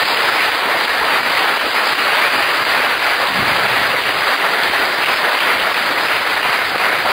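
Audience applauding steadily at a loud, even level.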